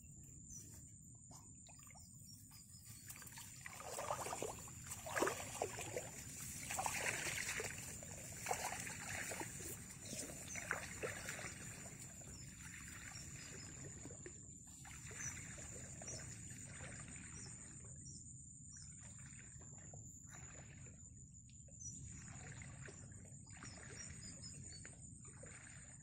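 Baby birds shifting and rustling in a nest of dry reed leaves, with a run of short, irregular soft sounds about four to twelve seconds in, over a steady high-pitched whine.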